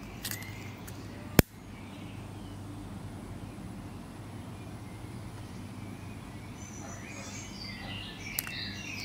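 A hand-held lighter clicks once sharply about a second and a half in, lighting a burner tray of gel fuel, with a steady low hum underneath. Birds chirp near the end.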